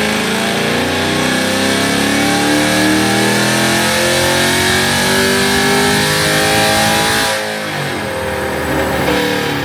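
Cammed Camaro V8 accelerating hard, its pitch climbing steadily for about seven seconds, then dropping suddenly and pulling again at a lower pitch.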